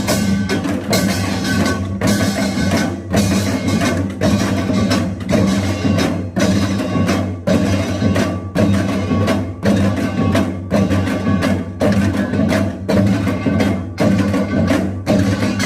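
Korean pungmul percussion playing a Yeongnam nongak rhythm: metal gongs ringing over drum strokes in a steady repeating cycle, with a short break in the pattern about once a second.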